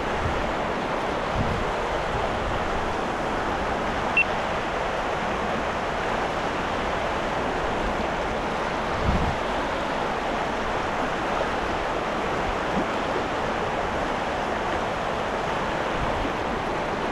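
Steady rushing of flowing river water, with a couple of soft low thumps.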